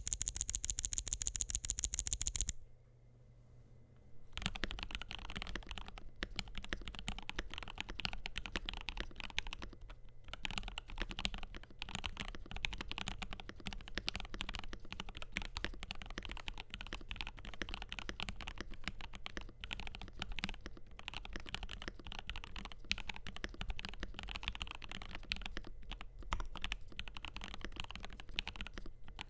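Typing on a mechanical keyboard, a FiiO KB3 with lubed Gateron G Pro 3.0 Yellow linear switches, a stainless steel plate and gasket mount: a steady stream of keystrokes starting about four seconds in. Before that, a loud, very fast and perfectly even run of sharp clicks sounds for a couple of seconds, then stops.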